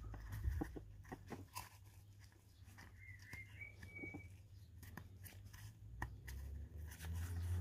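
Faint scattered clicks and rustles of small parts or tools being handled, over a low steady hum, with a brief faint squeak about three seconds in.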